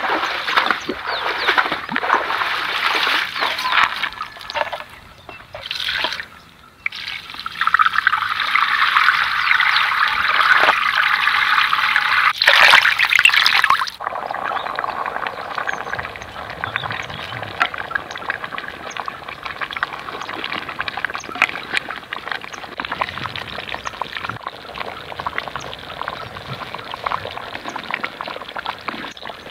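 Water being poured and splashed in a cooking vessel, loud and uneven, changing abruptly about halfway through to a quieter, steady running-water sound.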